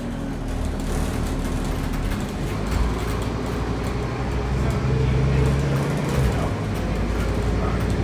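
Scania N230UD bus's five-cylinder diesel engine running, heard from inside the passenger saloon. Its low drone strengthens about halfway through and eases off again near the end.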